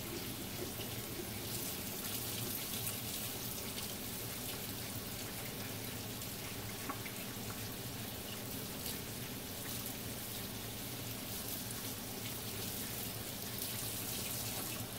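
Kitchen tap running steadily into a sink as jalapeño peppers are rinsed out under it.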